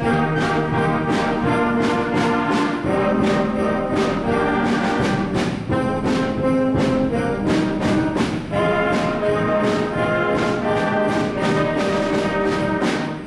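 School concert band playing with full brass, loud and steady, held chords changing over a regular drum beat, ending on a final chord near the end.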